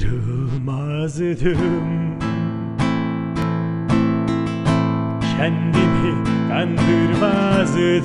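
A male voice singing a Turkish song over strummed acoustic guitar. The singing comes in two phrases, one at the start and one in the second half.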